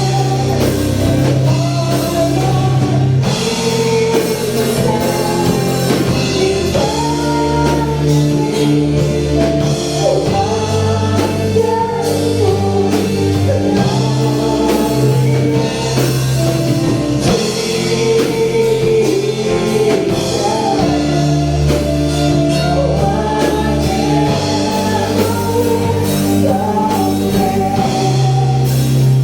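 Worship song with singing over a band of bass, electric guitar and drum kit, at a steady beat.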